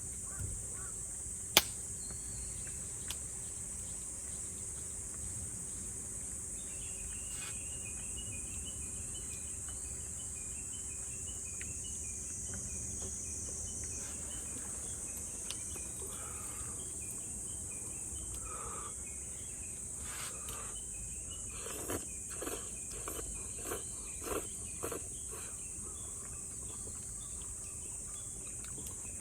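Steady high-pitched insect chorus, with a sharp click about one and a half seconds in, a run of quick repeated chirps in the middle, and a cluster of knocks and clicks about two-thirds of the way through.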